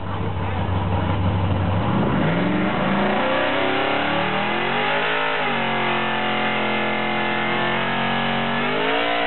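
A drag-racing pickup's V8 idling low, then revving up about two seconds in and held at high revs with a brief dip partway, climbing again near the end: the engine under throttle for a burnout at the start line.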